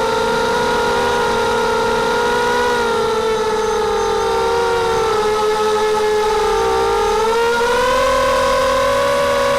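Mini racing quadcopter's brushless motors (X2204 2300KV, 5x3 props) whining steadily in flight. The pitch sags about five seconds in and climbs back near eight seconds as the throttle changes.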